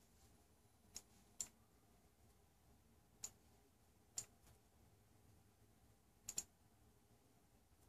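Computer mouse button clicking: six short, sharp clicks spread over several seconds, the last two in quick succession, against near silence.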